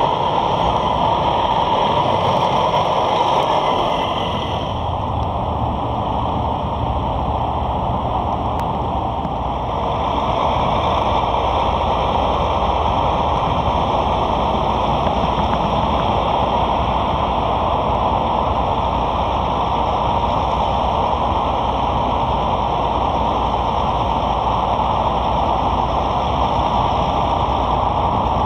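Heavy truck diesel engine running steadily, heard with a constant rushing noise.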